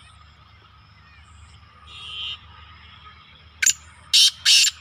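Caged black francolin calling: a sharp click note followed by two loud, harsh, grating notes near the end. A short faint call is heard about two seconds in.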